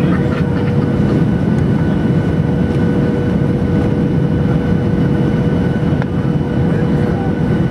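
Cabin noise inside a Boeing 737-800 on final approach: the steady low rumble of airflow and the CFM56-7B engines, with a steady hum on one note above it.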